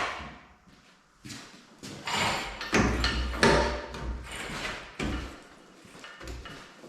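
Metal scraping and clunking in uneven bursts as the engine is hoisted out of a John Deere 320D skid steer with an engine crane, with a low rumble under the loudest stretch about three seconds in.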